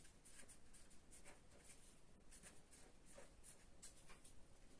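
Faint strokes of a felt-tip marker writing on paper, in a string of short, irregularly spaced strokes.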